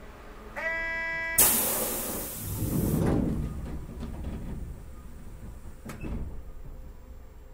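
Aboard a Sapporo streetcar M100-class car: a short buzzer tone, then a sudden loud hiss of compressed air as the pneumatic doors work, fading within about a second and a half, with a low rumble from the doors sliding. A single click comes near the end, over the steady hum of the stopped car.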